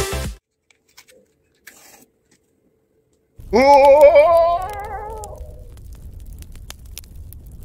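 Electronic intro music cuts off at the start, followed by near silence. About three and a half seconds in comes a single loud voice-like note that rises and wavers in pitch for about two seconds before fading. After it, faint light clicks as small clay kitchen pieces are handled, over a low room hum.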